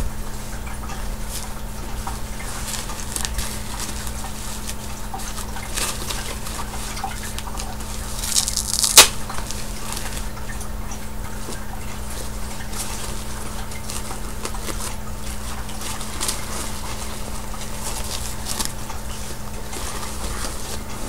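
Handling noises of a diaper change: a disposable diaper and cloth rustling with scattered small clicks over a steady low hum, and a short rustling burst ending in a sharp snap about nine seconds in.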